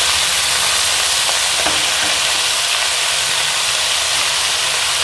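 Chopped spinach sizzling steadily as it fries in a little hot oil in a kadhai.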